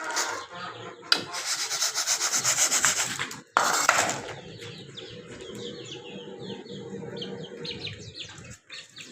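A quick, rhythmic scraping rub for about two seconds, then a brief loud rustle. After that, small birds chirp steadily in short, high calls.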